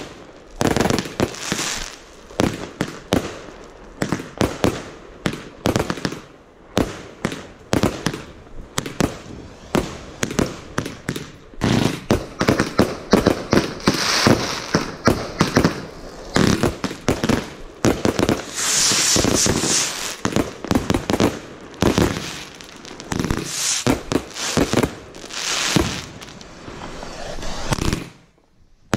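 Consumer firework barrage cakes firing in rapid succession: a dense run of loud launch thumps and bursting shots, dropping to a brief lull near the end.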